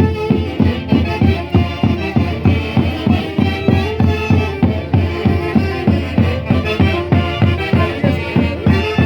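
A Huancayo orquesta típica playing traditional dance music with a steady quick beat, about four low strokes a second under sustained melody lines.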